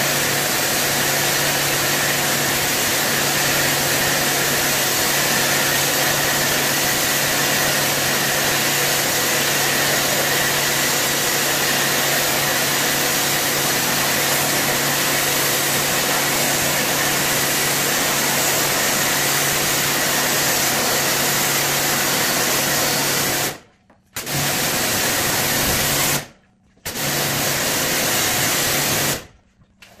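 Motorised rug-cleaning machine running steadily, with a motor hum under a strong hiss. Near the end it stops abruptly and restarts twice, then stops.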